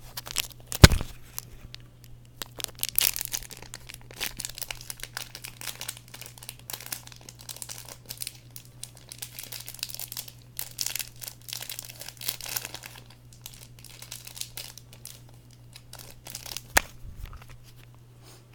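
Plastic packaging of a pack of card sleeves crinkling and rustling as it is handled and torn open, with a sharp knock about a second in and another near the end, over a steady low hum.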